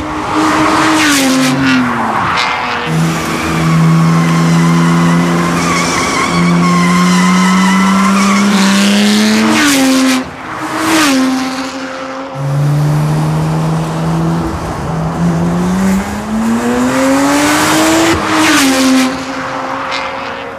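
BMW 1 Series M Coupé's twin-turbo 3.0-litre straight-six, breathing through an Akrapovič Evolution exhaust and downpipes, driven hard on a track. The engine note climbs and drops sharply with the gear changes, and holds steady for several seconds at a time. There are a few short sharp cracks around the shifts.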